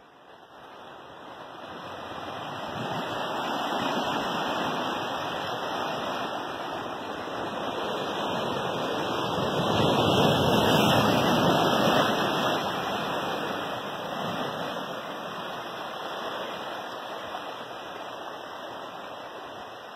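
Sea surf rushing and washing over the shore rocks, swelling to its loudest about halfway through and then easing off.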